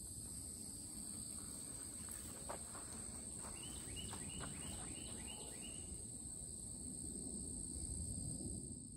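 Outdoor insect chorus: a steady, high, continuous buzz, with a quick run of about eight short falling chirps partway through.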